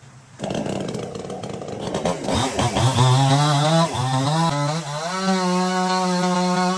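Chainsaw engine revving up sharply about half a second in, its pitch dipping and wavering for a couple of seconds as if under load in a cut, then held steady at high revs.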